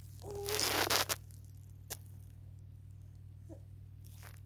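A short, loud tearing or rasping noise lasting about a second, then a single sharp click; a steady low hum runs underneath.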